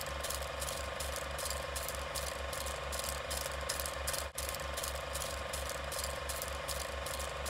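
Movie film projector running: a steady mechanical clatter with a fast, even pulse, which cuts out briefly a little past halfway.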